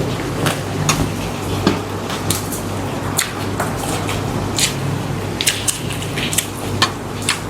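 Kitchen handling sounds during cooking: irregular light clicks and taps over a steady low hum.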